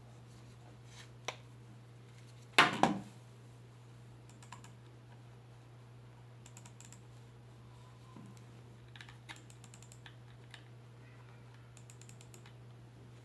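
Womier K66 mechanical keyboard keys being pressed in short quick runs of clicks, with a louder clatter about two and a half seconds in. A steady low hum runs underneath.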